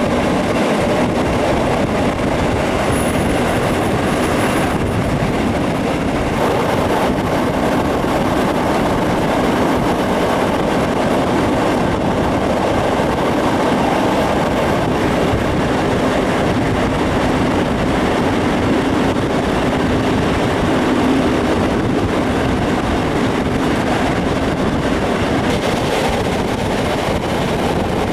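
Steam-hauled train running at speed, heard from an open coach window close behind the Deutsche Reichsbahn class 50 steam locomotive 50 3673: a loud, steady din of the locomotive working and the wheels running on the rails.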